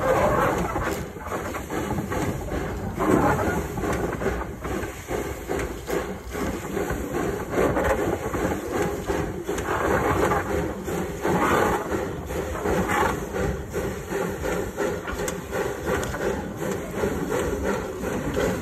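1935 Henschel narrow-gauge, coal-fired steam tank engine running slowly on its track: exhaust chuffing and steam hissing from the cylinder drain cocks, with a pulsing, uneven loudness.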